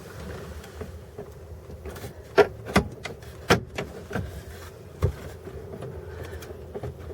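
Plastic dash trim being handled and pried, giving a handful of sharp clicks and knocks in the middle, over a steady low hum.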